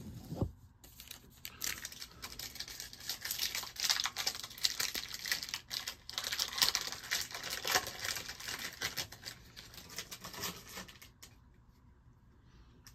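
Cards and a foil trading-card pack wrapper being handled, a dense run of small crackles, rustles and clicks that stops about eleven seconds in.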